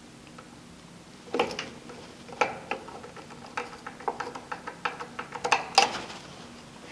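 Irregular metallic clicks and knocks, beginning about a second in, from a hand tool working the screws of a junction box on a steel vehicle restraint.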